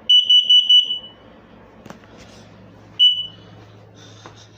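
Combination smoke and carbon monoxide alarm's piezo horn in its test cycle: four quick, loud, high beeps in the first second, the carbon monoxide alarm pattern, then one more short beep about three seconds in.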